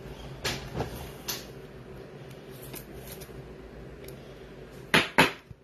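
Hands handling trading cards at close range: light clicks and rustles, then two sharp, much louder snaps in quick succession near the end.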